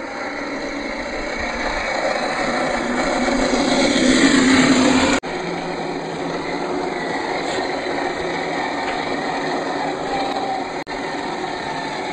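Redcat Gen8 RC crawler truck driving on dirt: its electric motor and geared drivetrain whine steadily over tyre noise, growing louder over the first five seconds. The sound cuts out sharply twice.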